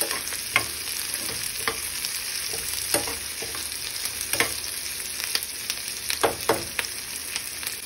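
Sliced onions sizzling in hot oil in a frying pan, being stirred, with a utensil scraping and knocking against the pan at irregular moments. The onions are being lightly sautéed to take away their raw taste.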